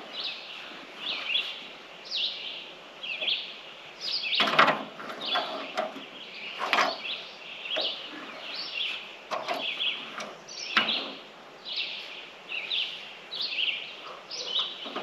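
Small birds chirping over and over, with a few sharp knocks, three louder ones spread through the stretch.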